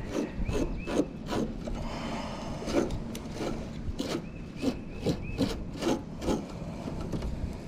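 Irregular scraping and rubbing strokes as a strip of ridge vent filter material is pulled and cut apart into a thinner layer, the tight material resisting.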